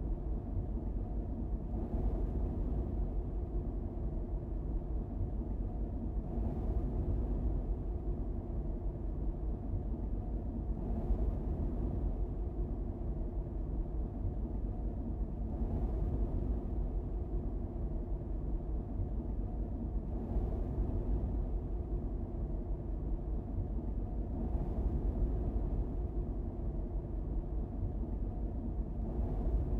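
Car driving along a paved road: a steady low rumble of engine and tyres, with a faint hiss that swells about every four to five seconds.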